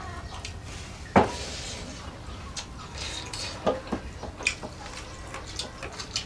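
Hands eating rice and meat from steel plates: fingers scraping and tapping against the metal in scattered short clicks, with one sharp clatter about a second in.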